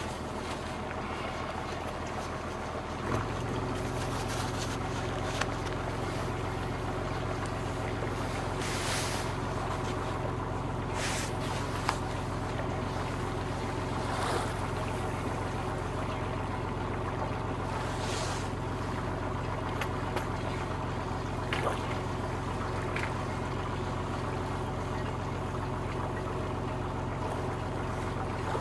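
Engine of an old wooden fishing boat running steadily under way, its hum getting louder about three seconds in, with a few brief swishes of water against the hull.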